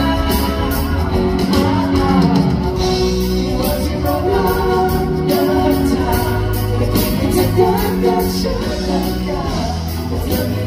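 Pop-rock song with singing over guitar and a steady drum beat.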